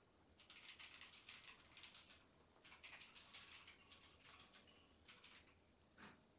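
Faint crackly rustling of fingers rubbing over skin and hair during a face and temple massage, in several short spells, with one brief soft sound near the end.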